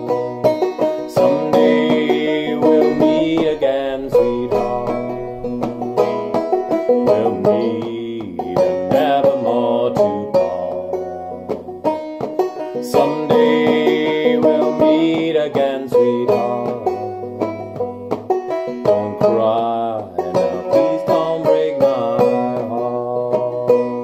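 Open-back banjo played clawhammer style in sawmill tuning, pitched lower than standard, playing a bluegrass song, with a man singing along.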